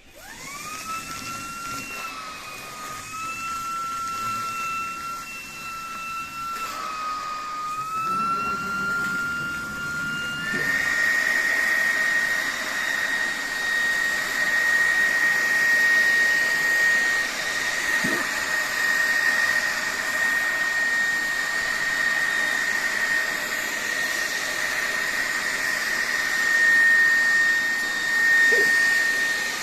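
Xiaomi Mi Vacuum Cleaner G9 cordless stick vacuum switching on, its motor whine rising quickly to a steady pitch. About ten seconds in it steps up to a higher, louder whine with more rushing air, and runs steadily from there.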